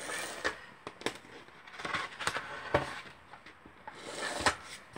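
ATG adhesive transfer tape gun being run along the edge of a foam core board, giving a run of irregular sharp crackles and clicks as the tape feeds out.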